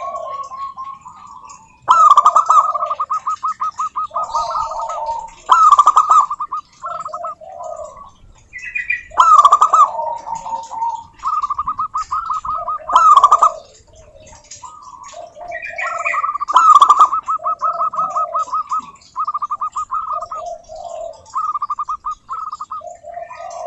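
Zebra dove (perkutut) cooing: repeated song phrases of fast stuttering staccato coos, each a quick run of pulses with lower answering notes, coming every few seconds.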